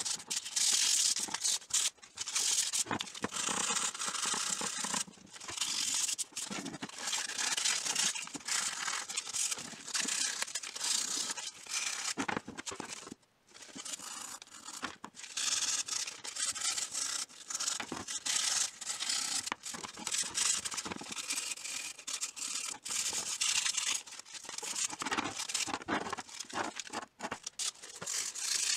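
Sandpaper rubbed by hand over the steel of old pincers: a dry, scratchy rasping in repeated uneven strokes, with a short pause about thirteen seconds in.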